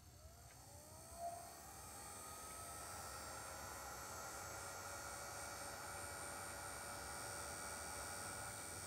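Heat gun switched on, its fan whine rising in pitch over the first couple of seconds and then running steadily with a blowing hiss, shrinking heat-shrink tubing over a soldered wire joint.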